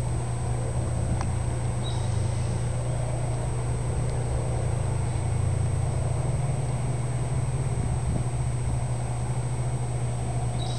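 Steady low mechanical hum, even and unbroken.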